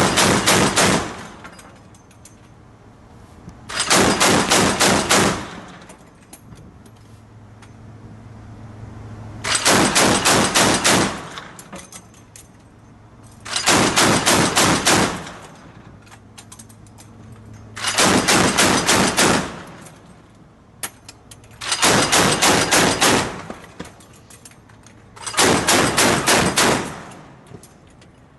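Mk38 25 mm machine gun system's M242 Bushmaster chain gun firing on automatic in seven short bursts of several rounds each, about four seconds apart. A low steady hum sounds between the bursts.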